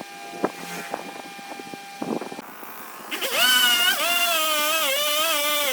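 Wood lathe turning a large workpiece: a steady whine with a few sharp knocks, then, about three seconds in, a louder high-pitched squeal that wavers up and down in pitch as a turning tool cuts the wood.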